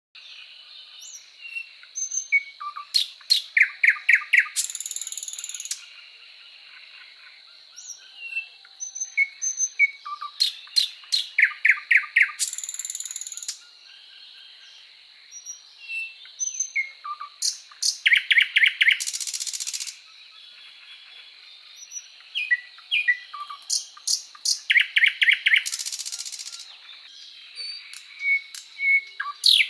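Birdsong: four phrases about seven seconds apart, each a run of quick, loud chirps ending in a dry buzzy trill. Softer single chirps fall in between, over a faint steady high tone.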